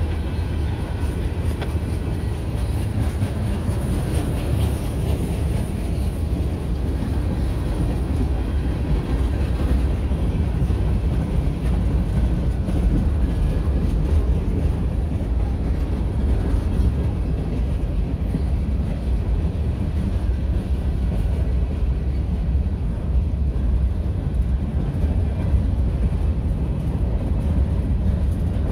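Freight cars of a mixed freight train rolling past: tank cars, boxcars and covered hoppers, their steel wheels on the rails making a steady low rumble.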